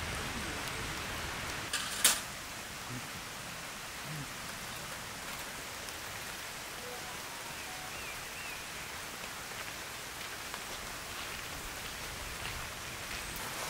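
Steady rain falling, with one sharp click about two seconds in.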